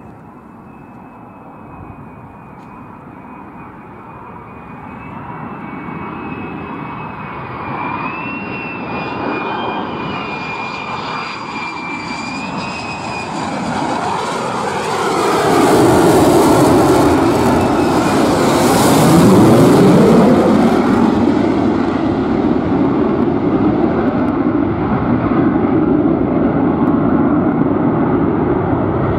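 RAAF F-35A's Pratt & Whitney F135 jet engine passing low overhead. A high whine grows louder as it approaches, the jet noise peaks over about four seconds past the middle with a sweep in pitch as it passes, and it stays loud afterwards.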